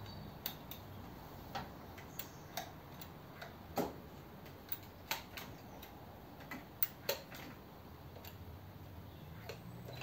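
Small metal parts clicking and tapping irregularly as a choke housing is fitted by hand onto a Holley four-barrel carburettor, over a faint low hum.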